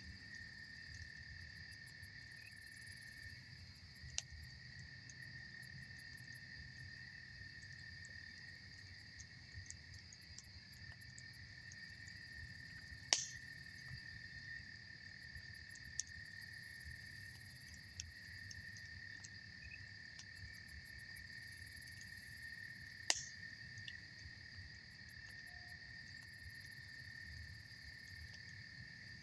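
Campfire burning with scattered sharp pops, the two loudest about a third and three quarters of the way through, over a steady high chirring of crickets and a low rush of river water.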